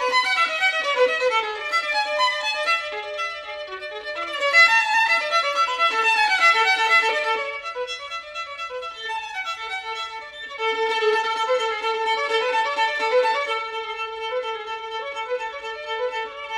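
Violin music playing a lively melody: quick runs of notes, then from about two-thirds of the way in a steadier passage with longer held notes.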